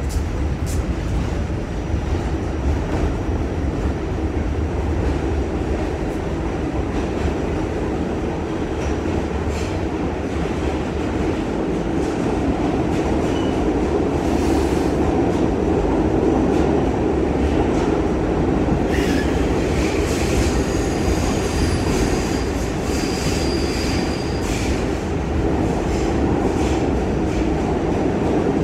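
Inside an R46 New York subway car leaving a station and running into the tunnel: a steady rumble of wheels on rail, growing slightly louder as the train gathers speed. High wheel squeals and a few clicks come in about two-thirds of the way through.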